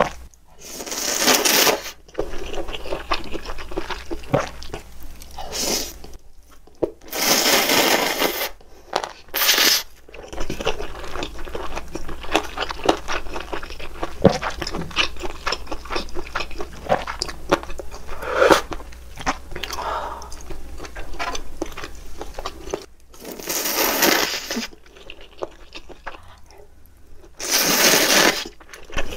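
Ramen noodles slurped up in several loud bursts of about a second each, with close-up chewing and mouth sounds between them.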